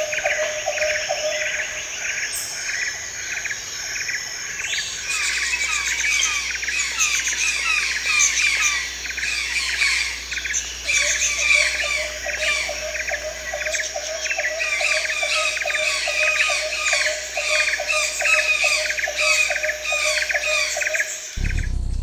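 A chorus of many birds calling over one another, with rapid repeated chirps and squawks. A lower, evenly pulsing call runs beneath for long stretches, and the chorus grows fuller a few seconds in.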